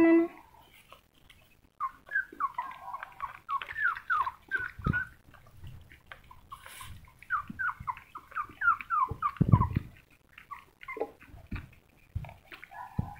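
Young puppy whimpering: two rapid runs of short, high-pitched, falling squeaks, with a few dull thumps, the loudest near the end of the second run.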